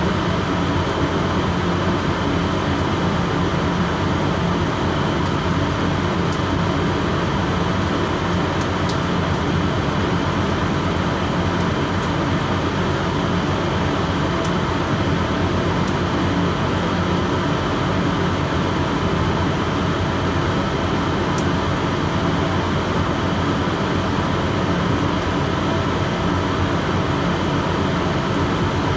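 Steady, unbroken drone of a boat's machinery running, with a constant low hum under an even rushing noise.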